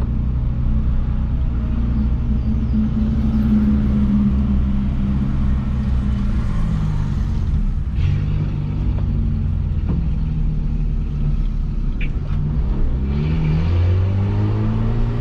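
Peugeot 206 1.4's four-cylinder engine droning through a straight-pipe exhaust with no muffler as the car is driven. The pitch drops and settles about eight seconds in, then rises near the end as the car accelerates.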